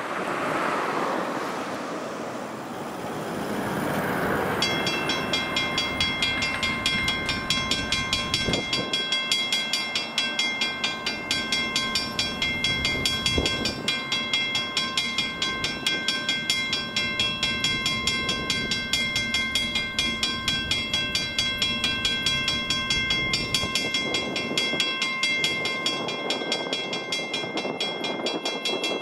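A car passes over the crossing, then about four and a half seconds in the level crossing's Western Cullen Hayes mechanical bell starts up, ringing with rapid, evenly spaced strokes as the signals activate for an approaching train.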